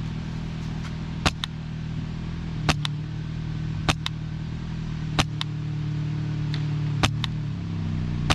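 PolarStar Kythera HPA airsoft rifle firing single shots, five in all, roughly one every second and a half, each crack followed a split second later by a second click as the BB strikes the target. A steady low engine hum runs underneath.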